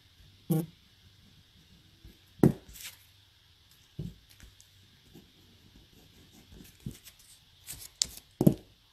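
Scattered clicks and knocks of small objects being handled, about a dozen spread irregularly, the sharpest about two and a half seconds in and twice near the end.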